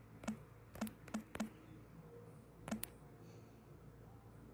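Typing: five short, sharp taps, four close together in the first second and a half and one more a little before three seconds, over a faint steady hum.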